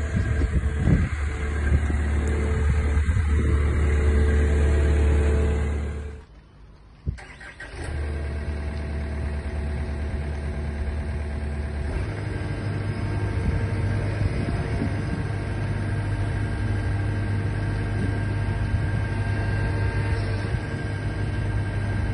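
Takeuchi TB290 excavator's diesel engine running steadily. The sound drops out briefly about six seconds in, then the engine runs on, and about twelve seconds in its low hum steps up in pitch as the engine speeds up.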